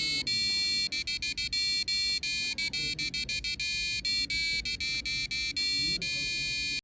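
Passive buzzer on an Arduino Uno playing a tune as a quick run of short, high, buzzy beeping notes with brief gaps between them: the kitchen timer's time-up song. It cuts off suddenly at the end.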